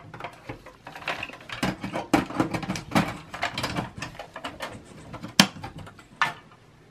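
Sheet-metal optical drive cage of a Dell Optiplex 3060 small-form-factor desktop being lowered and seated into the chassis: a quick run of metal clicks, scrapes and rattles, then a single sharp click about five and a half seconds in.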